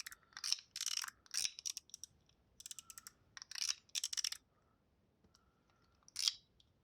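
Blackened-zirconium Ling Yun 3.0 mechanical fidget slider being slid back and forth, its spring-loaded balls snapping into the detents: quick runs of crisp metallic clicks, with a pause of about a second and a half before one more run near the end.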